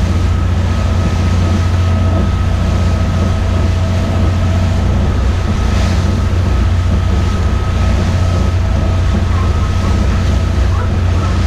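Sightseeing boat's engine running steadily: a deep, even drone with a faint steady whine above it.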